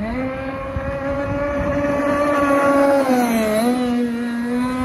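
Radio-controlled speedboat's 32cc two-stroke petrol engine running flat out across the water, its pitch rising at the start and holding high. About three and a half seconds in, the note sags briefly as the boat carves a turn, then climbs again.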